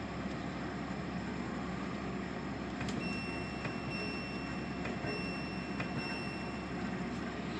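Portable air conditioner running with a steady hum. About three seconds in, a click is followed by a steady high-pitched electronic tone that lasts about four seconds, with a few faint clicks during it.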